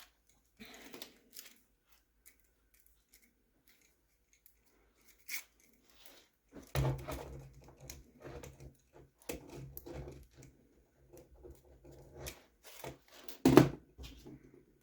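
Velcro hook-and-loop strap being pulled apart and wrapped around a small RC battery, with rustling handling noise and one sharp knock near the end.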